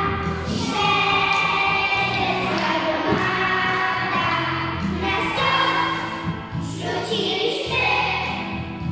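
A group of young children singing a song together, with instrumental accompaniment holding steady bass notes underneath.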